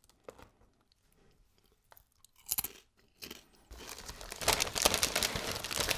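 Crunchy potato chips (Lorenz Crunchips) being chewed. After a mostly quiet start with a few small clicks, a dense crackling crunch sets in about four seconds in.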